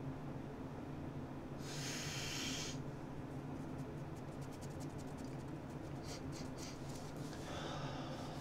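Nasal snuff being sniffed hard up the nose: one sharp sniff lasting about a second, two seconds in, and a shorter sniff near the end. In between, light clicking and scraping from fingers handling the metal snuff tin.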